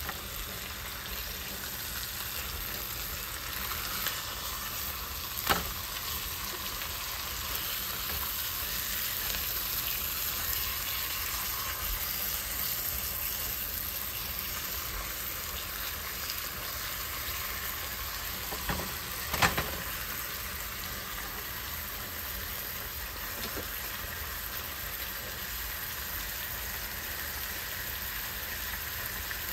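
Tilapia fillets frying in butter in a pan, a steady sizzle. There is a sharp knock about five seconds in, and louder knocks about nineteen seconds in.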